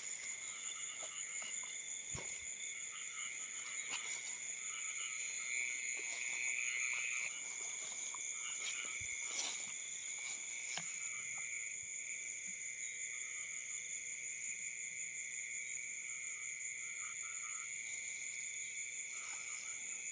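Night chorus of frogs croaking in short repeated calls over a steady, high-pitched insect drone.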